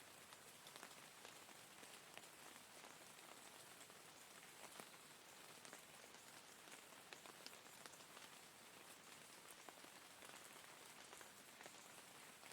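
Rain falling steadily and faintly: an even hiss with many separate drop ticks scattered through it.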